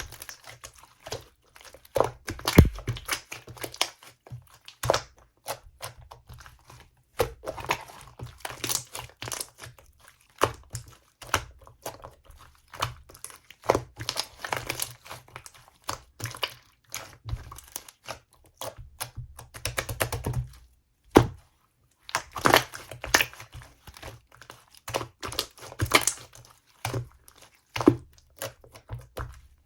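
Clear slime being squeezed and worked by hand, giving a constant run of irregular sticky pops, clicks and crackles.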